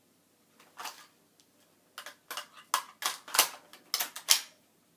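A quick run of about ten sharp clicks and clacks, irregularly spaced and of uneven loudness, starting about two seconds in, with a single click before them.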